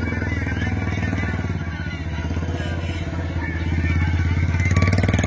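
Motor vehicle engine running with a steady low hum, getting louder about four seconds in and easing off at the end, with faint crowd voices underneath.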